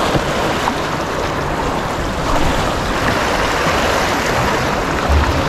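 Sea waves washing against a rocky shore, with steady wind noise on the microphone and a low gust about five seconds in.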